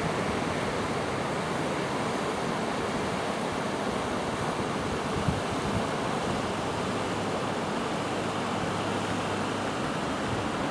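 Steady, even rush of river water running over shallow rapids.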